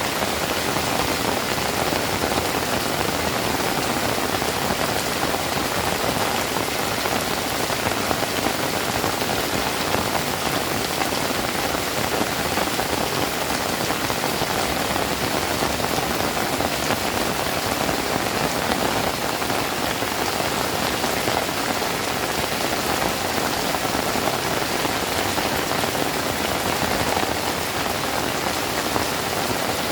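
Steady heavy rain falling on surfaces, a dense even patter of drops.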